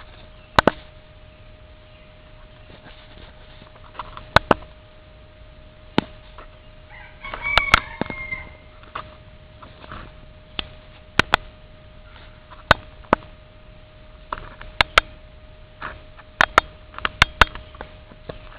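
Cornish rooster giving one short crow of about a second and a half, about seven seconds in. Sharp clicks come throughout, many in quick pairs, with a faint steady tone underneath.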